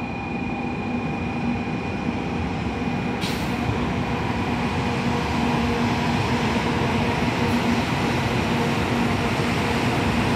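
JR West 700 series Rail Star shinkansen pulling slowly into the station on its arrival: a steady rumble of wheels and running gear that grows gradually louder as the train comes alongside. There is a single sharp click about three seconds in.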